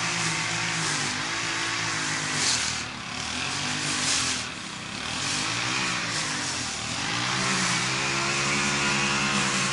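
Gas lawn mower engine running under load, its pitch sagging and recovering several times before holding steadier near the end, over a hiss of cutting.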